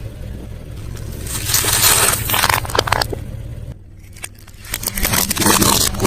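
Close-miked chewing and crunching of crispy fried food, in two bouts with a short lull in the middle.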